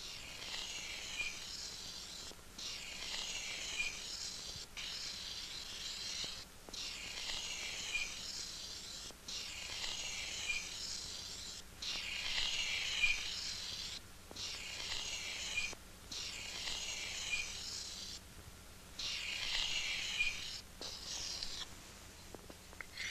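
Chalk scraping along pavement as lines are drawn: a run of long scratchy strokes, each about one to two seconds, with short breaks between.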